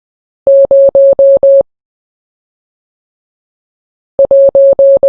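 Electronic Morse code beep, one steady mid-pitched tone keyed on and off: five dashes (the digit 0), then, after a pause of about two and a half seconds, a dot and four dashes (the digit 1).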